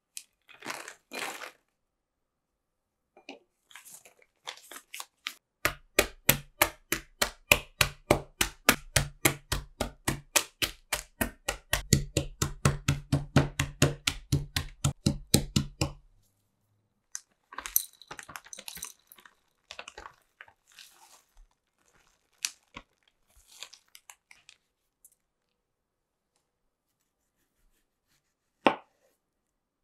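Mixed nuts in a plastic zip bag being crushed by beating them with a knife handle against a cutting board: a fast run of sharp knocks, about four or five a second for some ten seconds. Before it the nuts rustle into the bag; after it the bag crinkles, and near the end a knife knocks once onto the board while cutting a strawberry.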